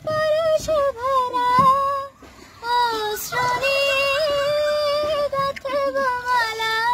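A young girl singing a Bengali song in a high voice, drawing out long wavering notes with brief breaths between phrases.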